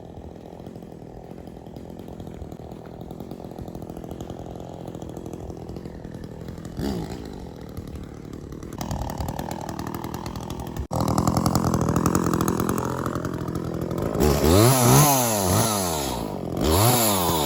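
Chainsaw engine running steadily at a low level, then speeding up after about nine seconds and running louder. Near the end it is revved up and down several times in quick succession.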